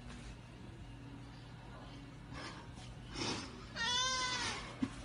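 A white domestic cat meowing once, about four seconds in: one call a little under a second long that rises and then falls in pitch.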